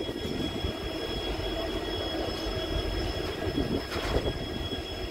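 WDG4D diesel-electric locomotives with EMD two-stroke engines running at close range: a steady low engine rumble with a thin, steady high whine over it. A short burst of broader noise comes about four seconds in.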